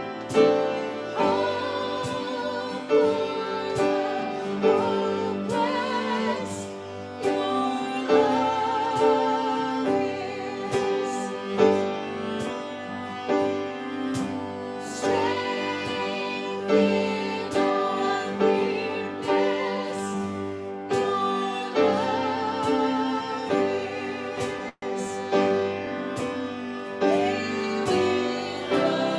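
Live worship song sung with vibrato over cello, piano and acoustic guitars, in a slow, sustained style. A split-second dropout in the sound about 25 seconds in.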